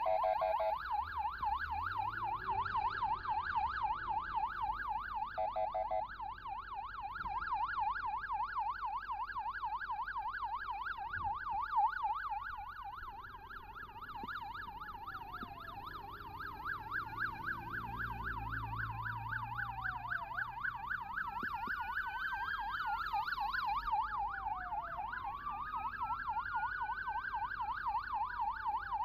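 Emergency siren on an escort motorcycle sounding a fast warbling yelp without a break. From about halfway a second siren joins with slower rising and falling wails. A short burst of rapid pulsing tone comes at the very start and again about six seconds in.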